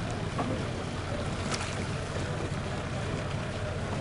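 Boat's inboard engine idling steadily with a low rumble, with a couple of faint knocks over it.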